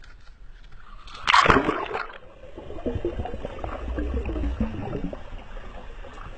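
A dog plunges into the sea with a splash about a second in. Muffled underwater bubbling and gurgling follow as it swims down, heard through a submerged camera.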